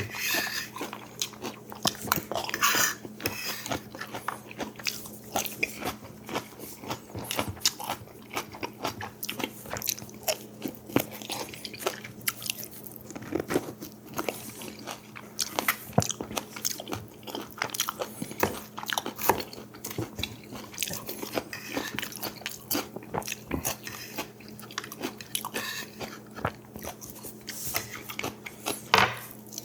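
A person biting and chewing food, with many quick, irregular crunching clicks over a faint steady low hum.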